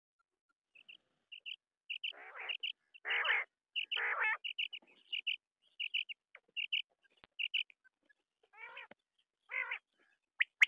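Quail calling: a run of short, high whistled notes, many in quick pairs and triples, with a few lower, rasping calls among them. It starts about a second in.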